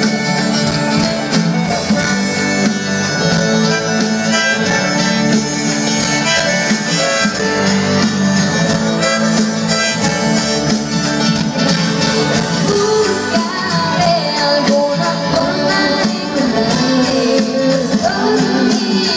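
Live pop-rock band playing an instrumental passage of the song, loud and steady, with guitar and held melodic notes over the band and little or no singing, heard from within the concert audience.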